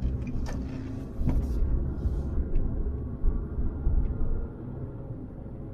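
Car driving along a road: steady low rumble of engine and tyres, with a couple of light knocks in the first second and a half. The rumble eases off a little near the end.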